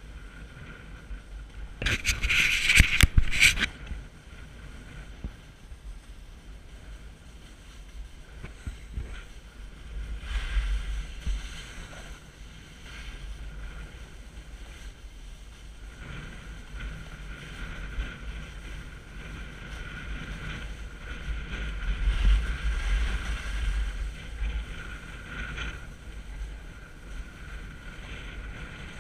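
Snowboard sliding and scraping over hard, worn snow, with wind rushing on the action camera's microphone. A louder burst of rough scraping and knocks comes about two to three and a half seconds in, and the scraping swells again a few more times.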